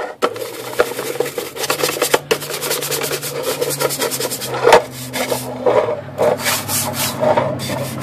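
Stiff bristle brush scrubbing the wet, black wrinkle-finish painted lid of a Royal KMM typewriter, quick scratchy back-and-forth strokes with one louder stroke a little past halfway.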